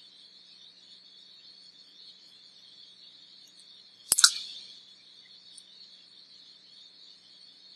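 A knife blade cutting down through a block of play dough and striking the laminated sheet on the table beneath: one sharp clack made of two or three quick strikes about four seconds in. A steady faint high-pitched hiss runs underneath.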